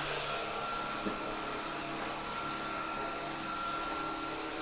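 Cordless stick vacuum cleaner running steadily while vacuuming a floor, a constant motor whine over airflow hiss.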